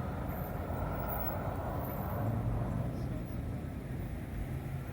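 Steady street traffic noise, with a vehicle passing close and swelling louder about two seconds in.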